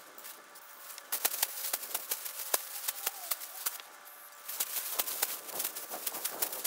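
Plastic bag crinkling and rustling as it is scrunched in the hands, with a short hiss of an aerosol spray can about four seconds in.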